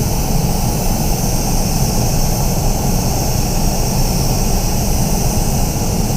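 Steady, loud rushing roar of air in a paint spray booth: the booth's fans running, with an even hiss over a low rumble.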